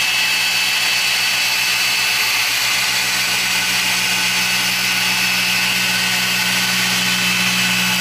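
A 15 mm-throw dual-action polisher running steadily with a Eurofiber pad and Sonax CutMax compound, cutting a test spot on car paint: a constant high whine over a lower hum.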